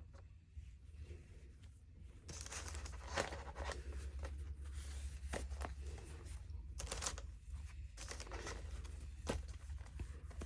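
Faint rustling and peeling as the felt and fabric pads of a microwave flower press are handled, with a few light clicks.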